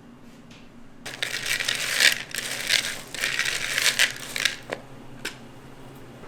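A clatter of small hard objects rattling and jostling for about three and a half seconds, then two light clicks.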